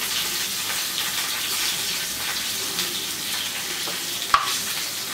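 Chopped vegetables sizzling in hot oil in a steel wok over a gas flame, a steady hiss. A single sharp click about four seconds in.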